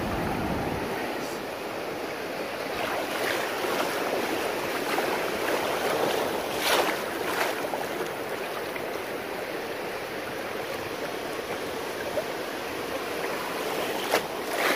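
Shallow ocean surf washing and fizzing steadily, with a few brief sharp splashes about halfway through and near the end.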